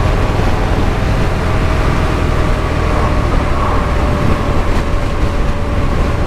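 Harley-Davidson Milwaukee-Eight 114 V-twin running at a steady cruising speed, a loud, even low rumble with a faint steady whine above it.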